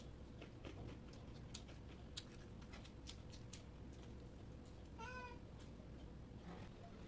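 A cat meowing once, faintly and briefly, about five seconds in, among a few light clicks and taps.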